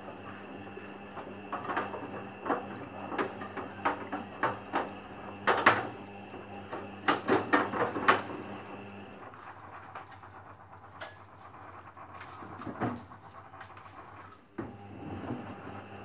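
Beko Eco Care WMA 1510 W washing machine on a 60 °C eco wash, its drum tumbling a sudsy load: the motor hums steadily under irregular sloshing and slapping of wet washing. About nine seconds in the motor stops for the pause between drum turns, and it starts again near the end.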